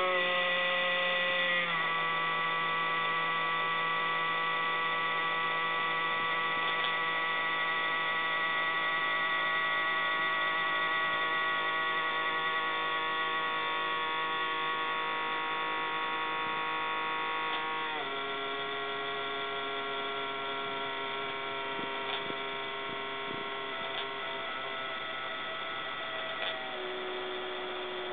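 Abnormal steady electrical hum with many overtones from a Toshiba REGZA RD-R100 HD recorder, dropping in pitch in steps about two seconds in, about eighteen seconds in, and again near the end. It is a fault noise that the recorder starts making on its own while it is switched off.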